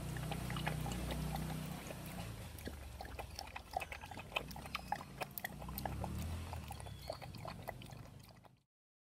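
A dog lapping water: irregular quick wet slaps and splashes over a low hum, cutting off abruptly near the end.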